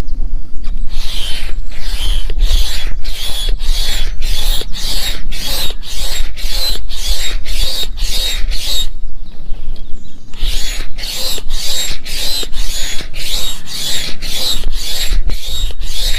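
Upright hand air pump worked in quick, even strokes, about two to three a second, each stroke a rush of air with a faint squeak, inflating an inflatable camp bed. The pumping stops briefly about nine seconds in, then carries on.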